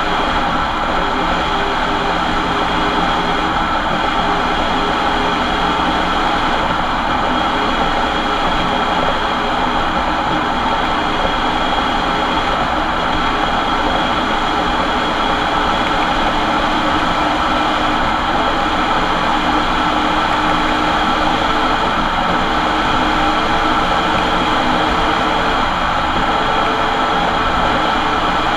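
Ford Transit van driving, with a steady whine from its worn differential over the road noise: the sound of a bad diff.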